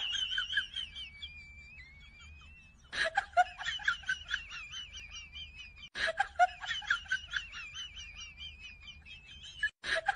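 A high-pitched, sped-up giggle of rapid short notes, about four a second, over a thin steady whistle. The same three-second stretch plays three times in a row as a loop.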